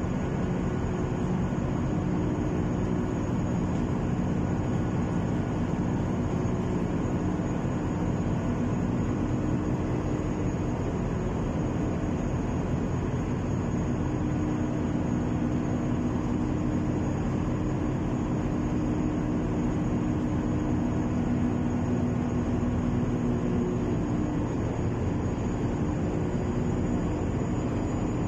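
Tug boat's engines running, a steady drone with a low hum.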